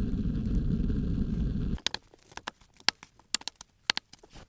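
A steady low rumble that cuts off suddenly, followed by scattered sharp crackles and clicks.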